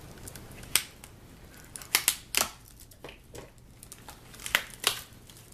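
A shipping package being opened by hand: a handful of sharp, crisp snips and rips of the packaging, one about a second in, a quick cluster around two seconds in and a pair near the end, with light rustling between.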